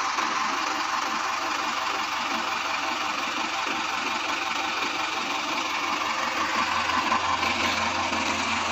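Dynapac road roller's diesel engine running steadily with a fast, even clatter, the machine's no-run fault now repaired.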